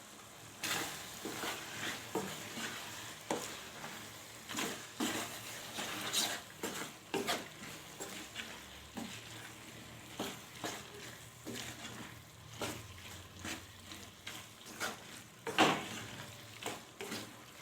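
Kitchen utensils clicking and scraping against cookware, as in stirring or handling food. The knocks are irregular, roughly one or two a second, with one louder knock near the end.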